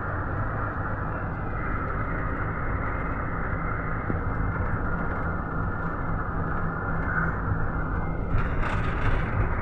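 Inside a Luidor-2250DS (GAZ Next) minibus on the move: a steady low engine drone with road and tyre noise in the cabin, and a brief louder burst of hiss near the end.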